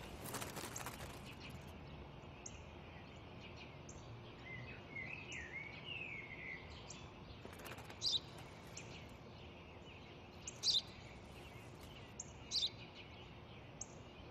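A sparrow chirping: short high chirps, louder and about every two seconds in the second half, with a brief warbling run of birdsong about a third of the way in, over a faint steady outdoor background.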